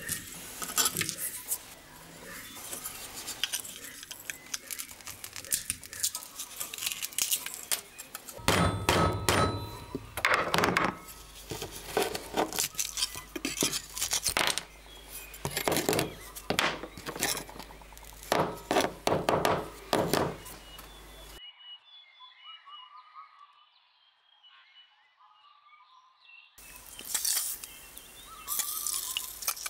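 Scraping, clicks and knocks of a steel screwdriver prying apart the rusted riveted handle of an old hawkbill folding pruning knife, with pieces breaking off. It falls nearly quiet for a few seconds about three quarters of the way in.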